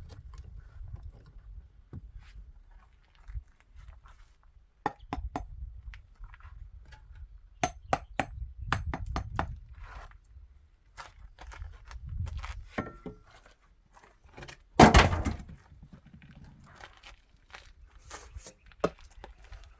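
Building work: scattered knocks, taps and clatter, with one heavy, loudest thud about fifteen seconds in.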